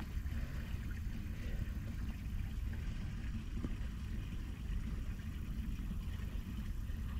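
Steady low rumble of a car running, heard from inside the car.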